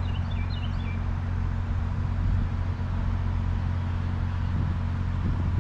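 A steady low engine hum runs throughout, with a short run of high bird chirps in the first second.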